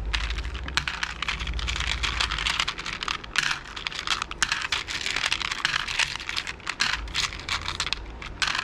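Resin beads clicking and rattling against each other as hands rummage through a plastic basket of them, a dense run of small clicks.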